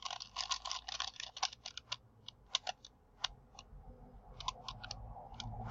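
Plastic 5x5x5 Rubik's cube clicking as its middle S slice is turned: a quick run of clicks in the first couple of seconds, then scattered clicks, with another short run near the end.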